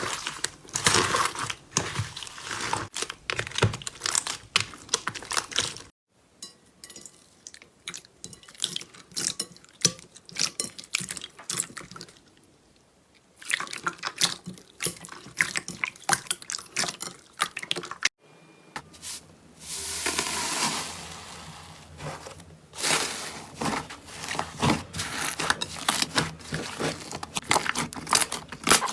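Slime being squeezed, poked and stretched: quick runs of sticky crackles, pops and squelches, with a quieter stretch around twelve seconds in.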